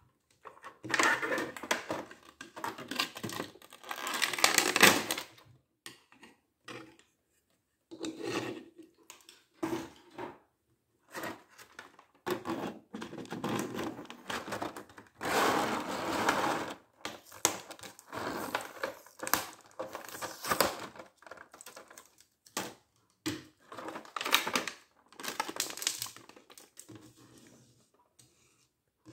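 Clear plastic blister packaging crinkling and crackling as it is handled and pried apart, in irregular bursts with short pauses between them.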